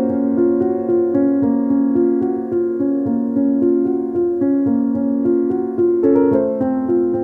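Background piano music: a slow line of sustained keyboard notes, changing about every half second.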